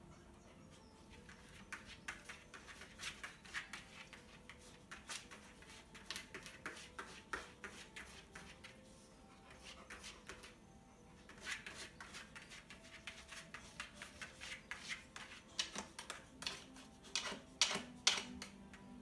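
A dog's claws scratching and scrabbling at the bedding and floor of a whelping box in quick irregular runs, with a pause about halfway and the loudest scrapes near the end. This is nesting-style digging, typical of a bitch in the first stage of labour.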